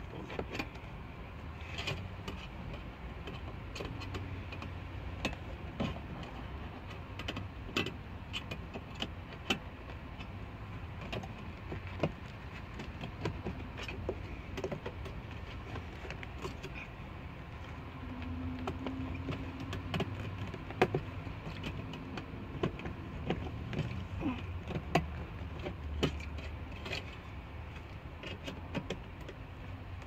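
Screwdriver bending the metal tabs of a stereo head unit's mounting sleeve: scattered sharp metallic clicks and scrapes, over a low steady hum.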